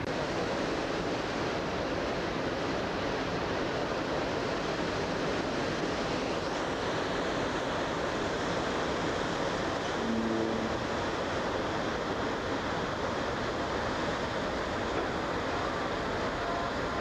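Steady rushing of churned sea in a ferry's wake, mixed with wind buffeting the microphone on the open deck.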